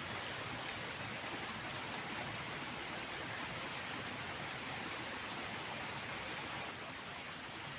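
Steady rushing of flowing water, an even hiss with no distinct splashes, dropping slightly in level near the end.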